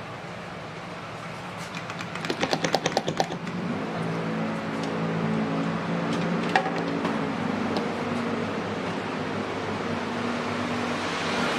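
A claw machine being played: a quick run of about ten sharp clicks, then the machine's electronic tune starts and plays on steadily, with a single click from the controls partway through.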